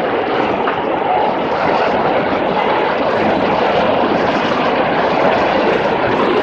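Ocean surf breaking at high tide, a steady loud hiss.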